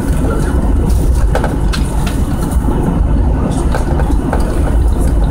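Airliner cabin noise while taxiing after landing: a steady, loud low rumble from the jet engines and the wheels rolling on the concrete taxiway, with a few faint knocks.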